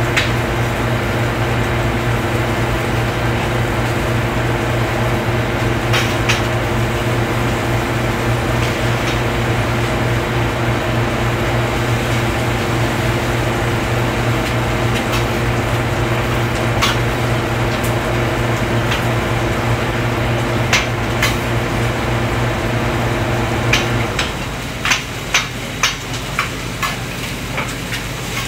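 Commercial kitchen line at work: food frying on a flat-top griddle and in pans, with a steady machine hum and metal utensils clinking against pans now and then. The hum cuts out about 24 seconds in, and a quick run of sharp metal clinks follows.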